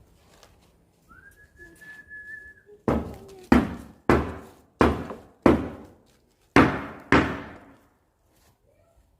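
Seven heavy knocks in an uneven rhythm, each ringing out with an echoing tail, preceded by a short, high whistle-like tone that rises and then holds.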